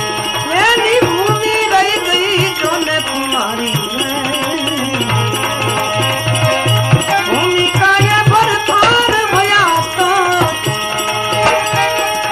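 Gujarati bhajan music: a melody line with sliding, ornamented pitch rises in two phrases over a steady drone, while tabla keeps a regular beat.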